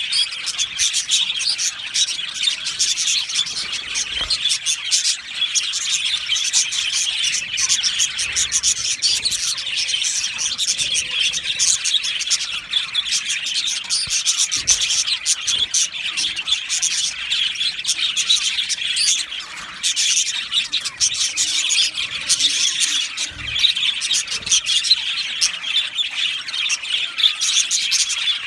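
A flock of budgerigars chattering and chirping, many birds at once in a steady, dense stream of short warbling calls.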